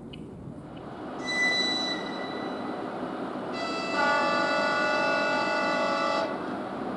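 Electric train's horn sounding twice for departure: a short high toot about a second in, then a longer, louder blast of about three seconds.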